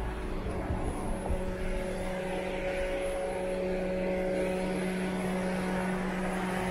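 A steady engine drone with a few held tones over a noisy rush, growing a little louder over the first few seconds and then holding.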